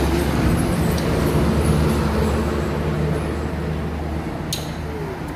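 A vehicle engine running steadily, with a single sharp click about four and a half seconds in.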